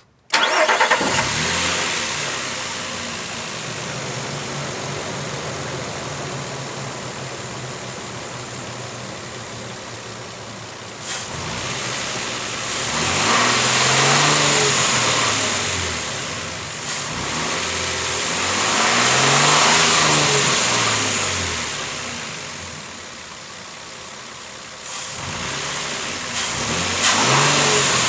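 2007 Nissan Frontier engine starting, then idling steadily and revved up and back down twice, with a shorter rev near the end. It runs without the timing-chain whine, the camshaft chain and tensioner face having just been replaced.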